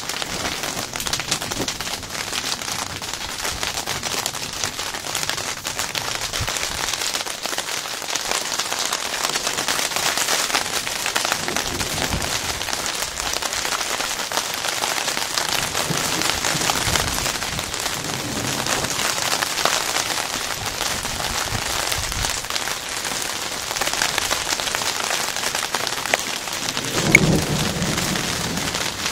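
Heavy rain of a summer thunderstorm falling steadily and pattering on surfaces, with a low rumble of thunder near the end.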